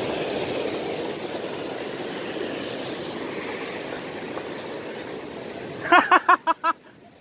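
Sea surf washing over shoreline rocks as a steady rushing noise. About six seconds in, a short burst of laughter, six quick "ha"s, cuts across it.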